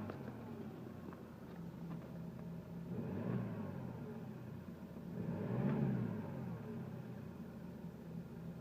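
Hyundai Grand Starex engine idling and revved up briefly twice, the second time harder, while it makes an unwanted extraneous noise.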